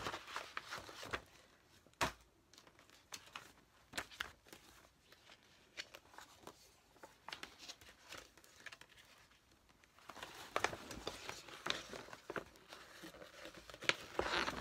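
Folded paper posters rustling and crinkling as they are handled and unfolded, with scattered sharp paper crackles: a loud one about two seconds in, a quieter stretch in the middle, and busier rustling near the end.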